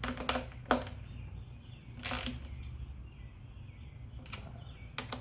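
Hand tools and metal parts clicking and clinking during engine work: a few sharp clicks near the start, a short scraping rasp a little after two seconds, and light ticks near the end, over a low steady hum.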